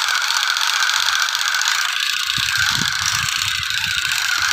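Battery-operated Ultraman toy pistol playing its electronic shooting sound effect: a loud, steady, fast buzzing rattle with a hiss.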